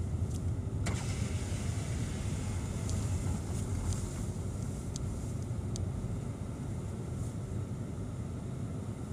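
Car engine running at low speed, a steady low hum heard from inside the cabin, with a few light clicks.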